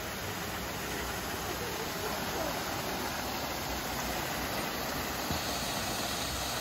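Waterfall rushing steadily: an even roar of falling water with no breaks.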